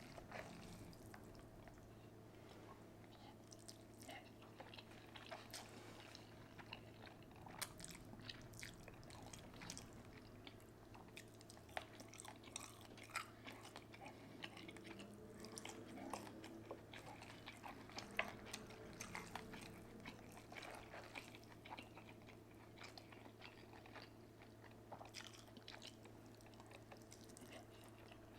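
Close-miked mukbang eating: a person chewing and biting food, with many small wet clicks and crunches from the mouth, over a steady low hum.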